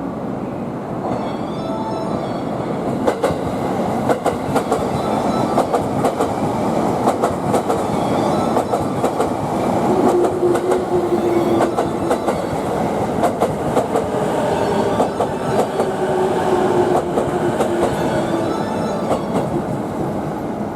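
Electric commuter train running along the platform, its wheels clicking over the rail joints, with a tone that slowly falls in pitch through the middle of the passage.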